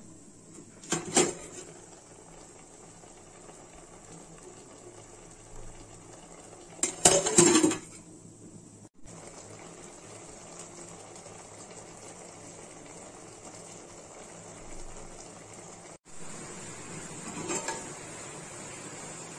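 Stainless steel pot lid clanking against the pot as it is lifted off and set back on: two loud clatters several seconds apart and a softer one near the end. Between them, a steady hiss of the pot simmering on a gas burner.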